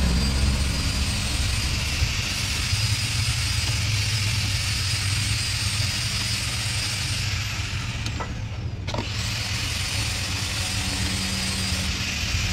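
Steady low engine rumble under a constant hiss, without breaks.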